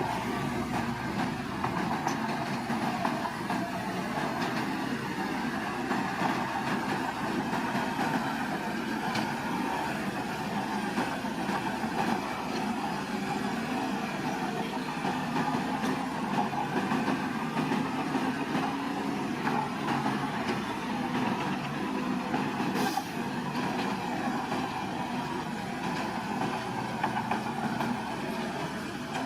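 Crawler bulldozer working, its diesel engine running steadily with no pauses.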